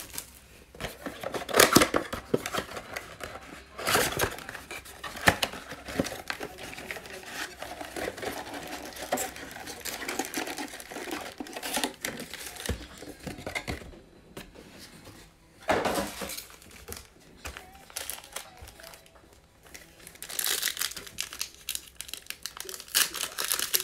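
Cardboard trading-card box being opened and foil card packs crinkling as they are pulled out and handled; near the end a foil pack is torn open, louder crinkling and tearing.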